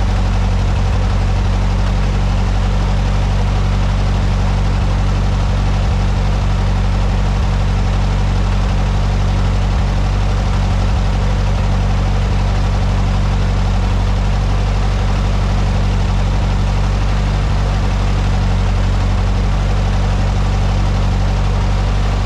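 1970 VW Beetle's air-cooled flat-four engine idling steadily, then cutting off suddenly at the end.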